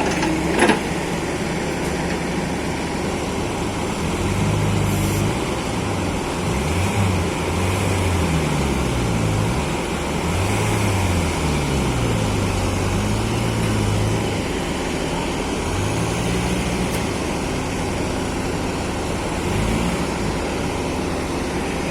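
Excavator diesel engine running, its pitch rising and falling again and again as the machine digs and swings soil into a truck. A single sharp knock sounds within the first second.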